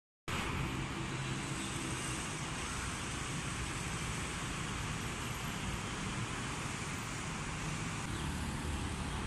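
Steady city road traffic: cars and other vehicles passing, a continuous rumble and hiss with no single vehicle standing out.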